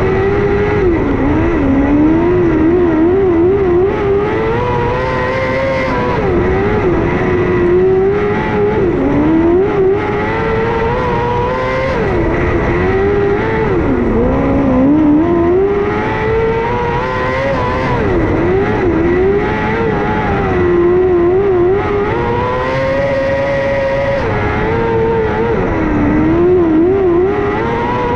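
Onboard micro sprint car's motorcycle-based engine running at moderate revs on slow laps around the dirt track, the pitch rising and falling repeatedly with quick wavering throttle blips.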